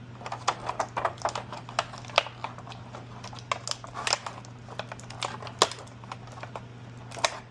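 Plastic toy packaging and accessories being handled and pried open, giving irregular sharp clicks and crinkles.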